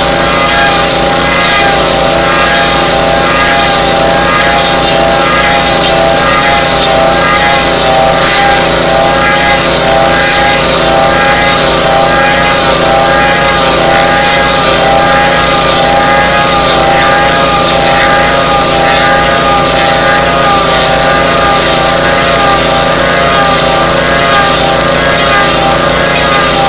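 Small gasoline engine running steadily under load, driving a log lathe's rotating knife head as it cuts a cedar log round, with a steady hiss of wood and bark being shredded. The engine's pitch wavers up and down about once a second as the cut loads it.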